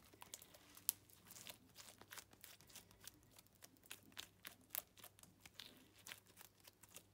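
Blue glue-and-borax jiggly slime being stretched and folded by hand: faint, irregular sticky clicks and small pops, the sharpest about a second in.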